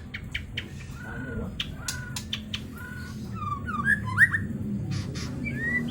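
Songbird calling: sharp clicks mixed with short whistled notes, then a run of quick rising and falling chirps, the loudest about four seconds in. A steady low hum runs underneath.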